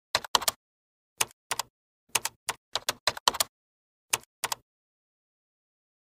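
Keyboard typing: a quick, irregular run of sharp keystroke clicks in short bursts, stopping a little before 5 seconds in.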